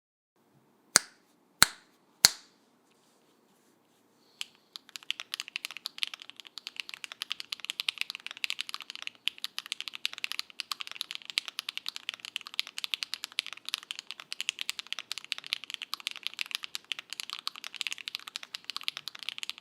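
Neo Ergo mechanical keyboard with stock HMX Emo switches, a polypropylene plate and Cherry-profile keycaps, typed on fast and continuously from about four and a half seconds in. Before that come three sharp, louder clicks, a little over half a second apart.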